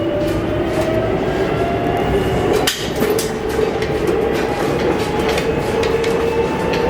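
C2-class tram running, heard from on board: the electric traction motors whine, climbing in pitch at first and then holding steady about halfway through, while the wheels click over the rail joints. There is one sharp knock about three seconds in.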